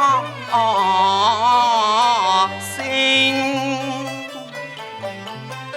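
Cantonese opera singing: a drawn-out sung syllable wavering with vibrato, over Chinese bowed and plucked string accompaniment, with the voice breaking off about two and a half seconds in and the instruments carrying on.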